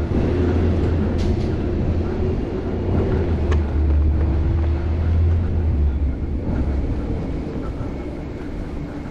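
Heavy vehicle running close by in street traffic: a steady low rumble with a slowly shifting engine tone that eases off near the end.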